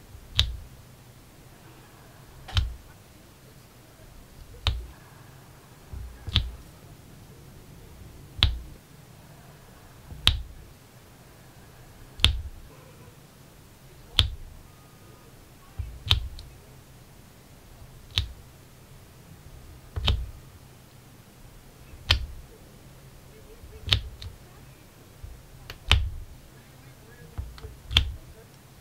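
Diamond painting multi-placer pressing rows of resin drills onto the sticky canvas, a sharp click with a dull thud about every two seconds.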